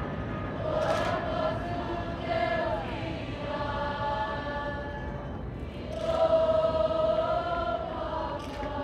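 Large mixed group of Cook Islands performers, young men and women, singing a chant-like song together in long held phrases.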